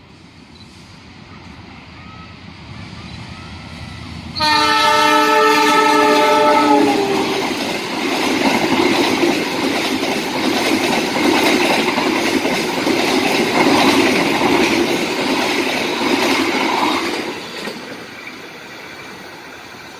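Passenger train approaching and passing close by: its diesel locomotive sounds one long horn blast about four seconds in, then the coaches run past with wheel noise on the rails for about ten seconds, fading near the end.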